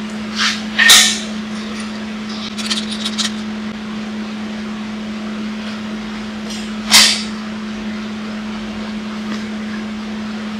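Metal clanks and clicks of a steel locking clamp being handled and set on square steel tubing: two sharp clanks about a second in and about seven seconds in, with a short run of lighter clicks around three seconds. A steady hum runs underneath.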